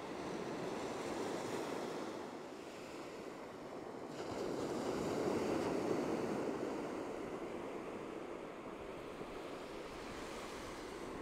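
Ocean surf breaking on a beach: a steady wash of waves that swells louder about four seconds in as a bigger wave breaks, then eases back.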